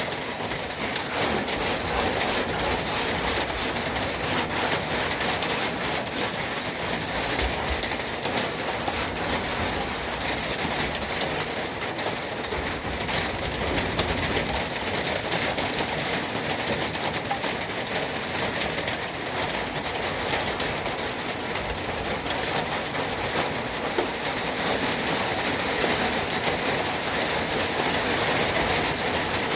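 Sandpaper scrubbed rapidly back and forth by hand over a diamond-plate metal toolbox, a steady rhythmic scratching of many strokes.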